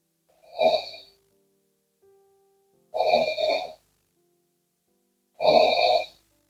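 A sleeping woman snoring: three loud snores about two and a half seconds apart, with near silence between them.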